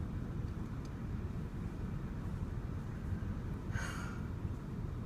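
Steady low rumble of a stopped car's engine idling, heard from inside the cabin, with one short breathy sound about four seconds in.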